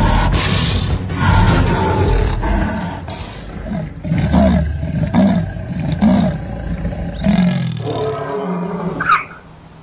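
A leopard and a dog fighting: loud snarling and growling, then a run of rising-and-falling cries about once a second, and a sharp high-pitched yelp from the dog near the end.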